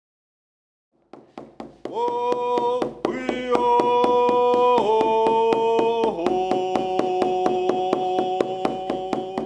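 A voice singing long, held notes that step to a new pitch every second or so, over a steady, quick drumbeat. The drum starts about a second in and the voice joins about a second later.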